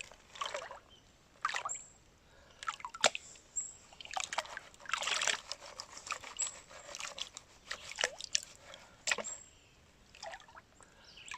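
Water sloshing and splashing in a gold pan as gravel is washed off the tipped pan's edge into a creek, in irregular bursts.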